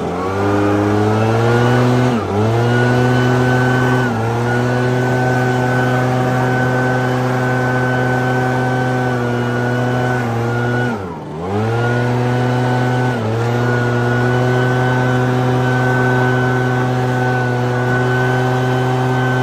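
Echo PB-8010 two-stroke backpack blower running at high throttle with a steady engine note. The pitch dips briefly and recovers about 2 and 4 seconds in, dips deeper about 11 seconds in, and dips once more about 13 seconds in.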